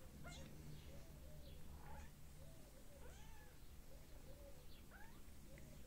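Young kittens mewing: a long string of short, thin, faint cries, some rising and falling in pitch, coming one after another through the whole stretch.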